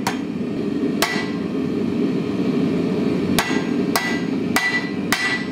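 Hand hammer striking hot steel held in tongs on an anvil: half-face blows forging a shoulder into the bar. Two blows about a second apart, a pause, then four quicker blows about every half second, these with a short metallic ring.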